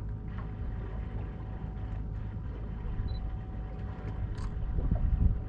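Boat engine idling: a steady low rumble with a faint steady hum over it, and a few faint clicks.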